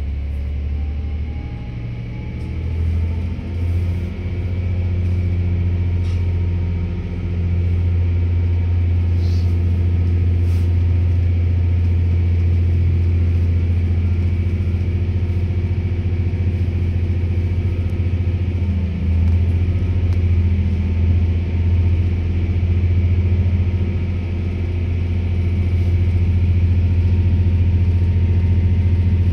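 Stadler GTW-D diesel-electric train pulling away under full power, heard from a seat right against the engine: the diesel engines run hard with a deep, steady note, mixed with a faint whine from the electric traction motors that rises as the train gathers speed. The sound grows louder about a third of the way in and again near the end.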